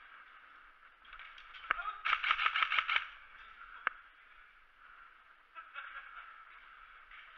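A rapid burst of airsoft gunfire, sharp clicking shots about seven a second for about a second, then a single shot near the middle.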